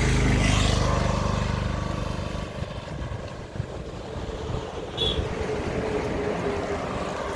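Road traffic passing close. A vehicle engine swells to its loudest about half a second in and fades over the next two seconds, then another engine hums steadily, with a short high chirp about five seconds in.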